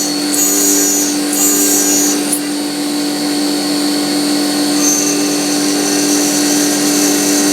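CNC milling machine with an end mill cutting a slot in a titanium tube: a steady spindle hum under a high-pitched cutting hiss. The hiss comes in short repeated bursts for the first couple of seconds, then runs continuously from about five seconds in.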